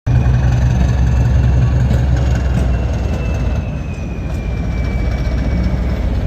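Loud train passing: heavy diesel-locomotive rumble with a few clicks from the wheels on the rail joints and a faint high whine slowly falling in pitch.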